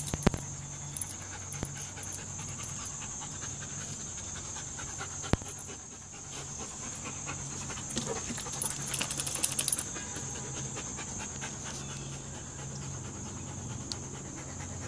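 A dog panting, with a few sharp clicks and a run of small scuffling clicks and rustles about eight to ten seconds in, from dogs playing on grass.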